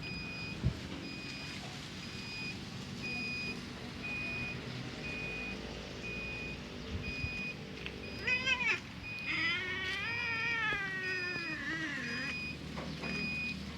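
A cat meows twice: a short meow about eight seconds in, then a longer one that falls in pitch. Under both, an electronic beep repeats evenly, a little more than once a second.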